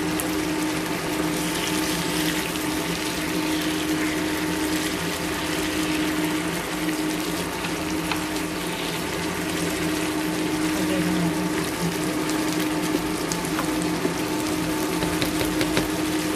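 Sauce simmering in a pan on an induction cooktop: steady bubbling with fine crackles over a constant low hum from the cooktop.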